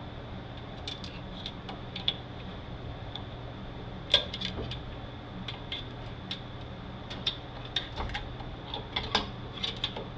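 Metal hand tools clinking and tapping against steel transmission parts: scattered light clicks, a sharper knock about four seconds in, and a quicker run of clinks near the end, over a steady low hum.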